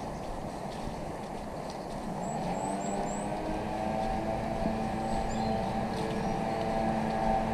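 A distant engine drones steadily, its hum growing louder from about two seconds in, over a low rumble. A small bird gives four quick high chirps around two to three seconds in.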